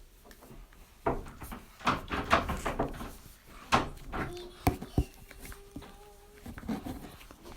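A series of knocks and bumps, as of a door or cupboard being handled, with a few sharp clicks in the middle.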